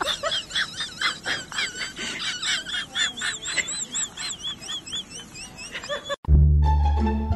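Quick high chirping, bird-like, several chirps a second, that stops abruptly about six seconds in; louder plucked-string music with a deep bass then comes in.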